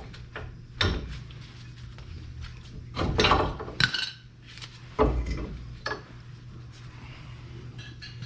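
Metal clanks and scraping from a seized front brake caliper being worked and knocked by hand, the loudest cluster about three seconds in.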